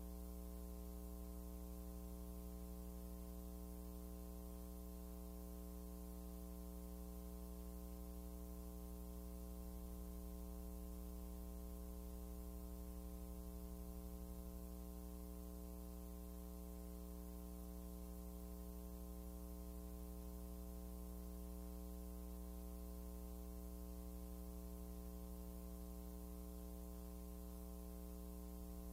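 Steady electrical mains hum with a ladder of overtones, unchanging throughout; no other sound stands out.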